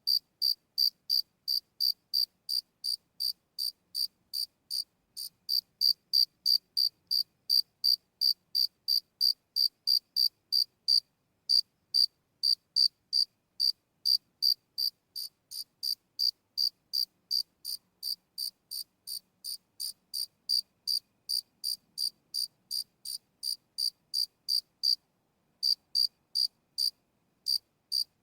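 A single cricket chirping in a steady, even rhythm of about three high chirps a second, with a few brief gaps and a longer pause of about a second near the end.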